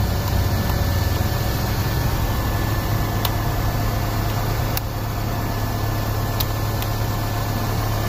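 2005 Saturn Ion's 2.2-litre four-cylinder engine idling steadily, running now that its injector fuse circuit is fed through a jumper. It has noticeable valve train noise, which the mechanic takes as a sign that it needs a timing chain.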